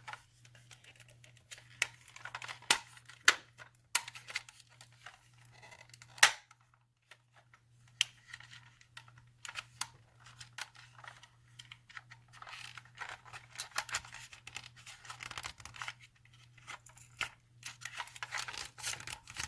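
Sharp clicks and short scratchy scrapes of a plastic toy ambulance being handled, with tape being peeled off a taped-in spacer, over a steady low hum.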